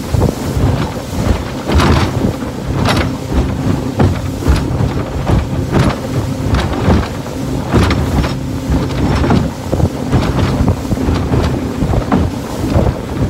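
Tour boat's engine running steadily under loud wind buffeting the microphone, with water splashing in frequent short bursts, about one every second or so.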